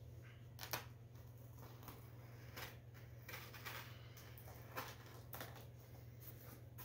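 Cardboard record mailer being handled and picked open by hand: faint, scattered scratching and rustling of fingers on cardboard, with a sharper click under a second in, over a steady low hum.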